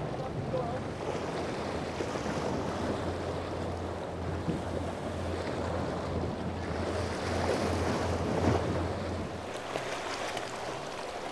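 Wind on the microphone over splashing waves, with a low, steady boat engine drone that drops out about nine seconds in.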